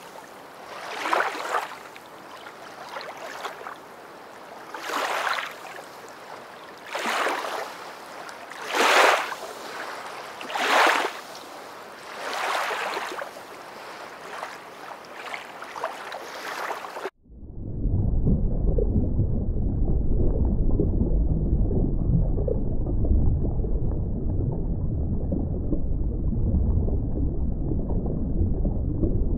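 Water rushing in swells about every two seconds, like surge washing through an aquarium pool. After an abrupt cut about 17 seconds in, a louder steady low rushing noise follows.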